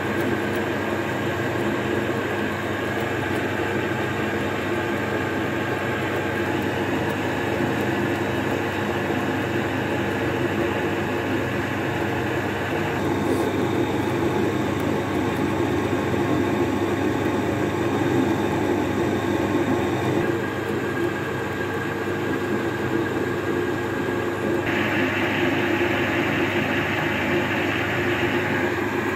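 A homemade metal lathe running under power, its open train of change gears meshing with a steady whirring rattle. The tone shifts abruptly several times.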